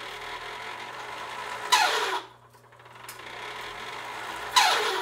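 Homemade Van de Graaff generator running with a steady hum, twice broken by a horrible screech that falls in pitch, about three seconds apart. It is the top roller catching on its shaft.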